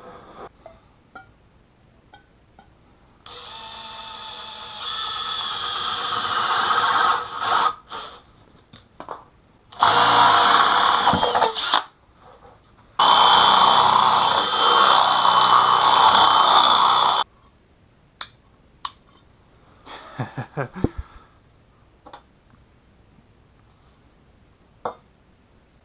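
Handheld power tool run in three bursts: the first climbs in pitch as the motor spins up over a few seconds, the next two last about two and four seconds. Short clicks and handling noises come between and after them.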